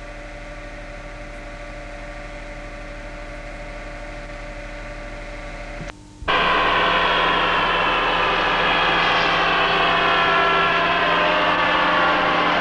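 NZR J-class steam locomotive J1211 and its train approaching: a steady, fairly quiet noise for about six seconds, then after a brief dip a much louder passage as the train draws close, with several pitched tones slowly falling.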